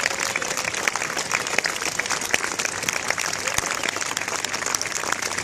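Crowd applauding steadily, a dense patter of many hands clapping, with voices mixed in.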